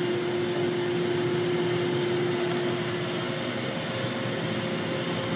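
Workshop dust extractor running steadily through its hose, an even rushing noise with a constant low hum; a second, higher steady hum joins about halfway through.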